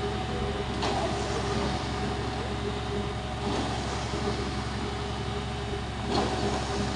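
Concrete mixer truck's diesel engine running steadily, driving the turning drum while concrete is discharged down the chute. Two brief sharper sounds cut in, about a second in and again near the end.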